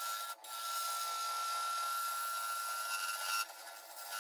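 A turning tool cutting a spinning mallee burl and resin blank on a wood lathe: steady scraping over the lathe's constant whine. The cutting breaks off briefly about half a second in and stops about three and a half seconds in, leaving the whine.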